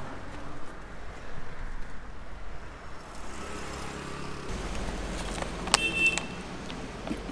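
Motor vehicle engine running steadily, getting louder about halfway through, with a few sharp clicks and a brief high ring near the end.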